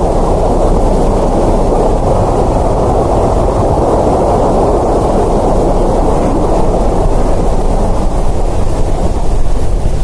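A loud, steady rushing noise with its weight in the low and middle range and no clear tone; it thins out near the end.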